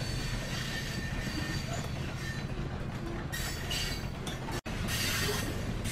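Train sound effect: a train running on rails, a steady rumble with rhythmic wheel clatter, which cuts out for an instant about two-thirds of the way through.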